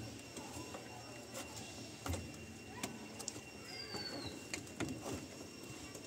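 Scattered light clicks and taps of plastic as a washing machine's display circuit board in its plastic housing is handled and pressed into position. A faint bird chirp glides downward about four seconds in.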